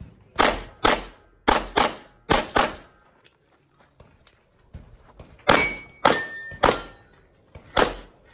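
Pistol shots fired in quick succession, each with a short ringing echo: two shots, then two fast pairs. After a gap of nearly three seconds, four more shots follow.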